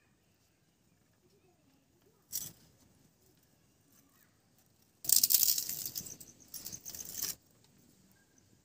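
Dry wood splinters and straw rustling and clattering against the clay as they are pushed into a mud chulha: a short rustle a couple of seconds in, then a longer, louder spell of rustling and clattering from about halfway that stops sharply.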